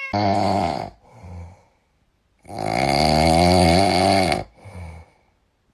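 Kitten snoring: two loud snores, the second about twice as long as the first, each followed by a shorter, softer breath out.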